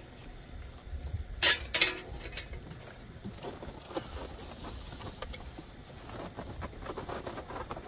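A large cardboard box with foam packing being handled and turned over. There are two sharp cardboard scrapes about a second and a half in, then lighter rustling and knocks of cardboard and foam.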